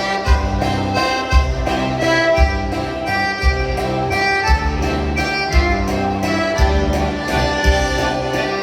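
Instrumental music: a sustained melody over a steady bass beat of about one note a second.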